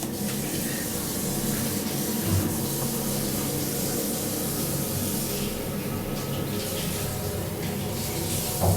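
Water running steadily from a tap, with a short knock near the end.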